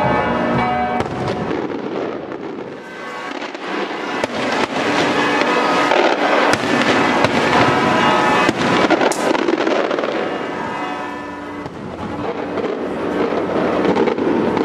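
Daytime aerial fireworks shells bursting overhead in a dense run of bangs and crackles. The barrage eases briefly twice, about three and eleven seconds in.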